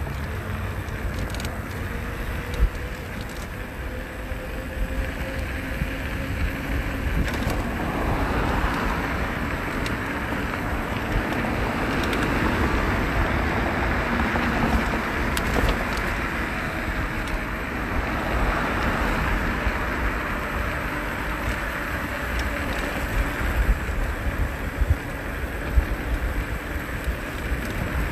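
Wind rushing over the microphone of a moving e-bike, with steady road and tyre noise and a faint whine that rises and falls. A few sharp knocks come through, one a couple of seconds in and two near the end.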